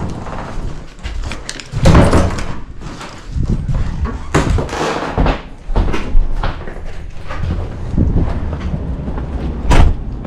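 A door being shut, with several loud thuds and knocks and the sound of people moving about.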